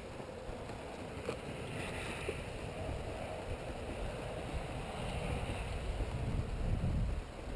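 Wind buffeting the microphone outdoors, a gusty low rumble that grows stronger near the end, with a faint click about a second in.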